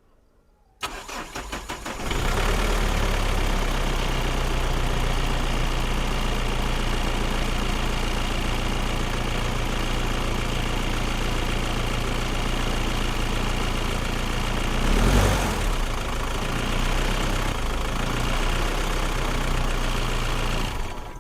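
Mahindra Bolero engine cranking for about a second, catching, and settling into a steady idle. There is a brief rev about 15 seconds in, and the sound cuts off at the end.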